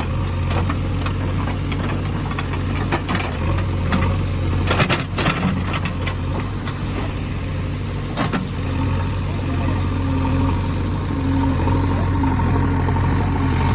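Heavy diesel engine of a backhoe or farm tractor running steadily at a low, even speed, with a few sharp knocks about five seconds in and again near eight seconds.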